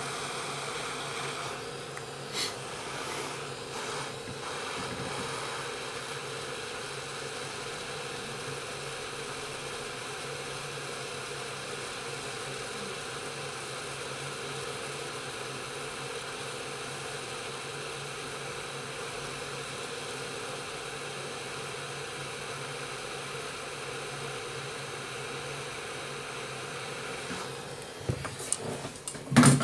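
Hot air rework station blowing steadily over an iPhone 5s logic board while the U2 charging chip is being soldered. A few sharp clicks sound near the end.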